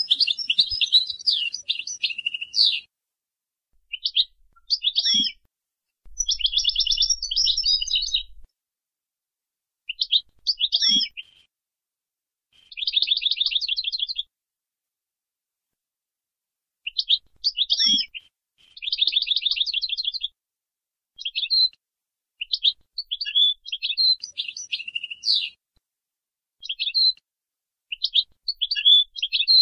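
European goldfinch singing: phrases of quick twittering notes and fast buzzy trills, separated by pauses of a second or two.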